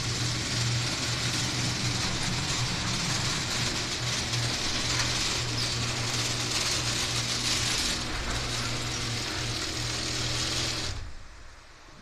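Sectional garage door running down on its opener: a steady motor hum with the rollers rolling along the steel tracks, stopping near the end as the door closes. The rollers are turning freely.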